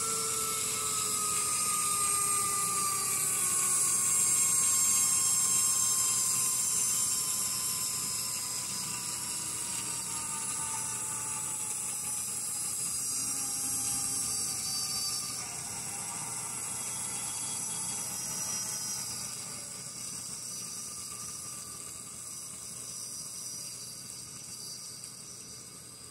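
Simulated locomotive engine sound from an MRC Sound and Power 7000 controller's loudspeaker: a droning whine that falls slowly in pitch and fades over many seconds, as the momentum setting eases the locomotive down after the throttle is turned back.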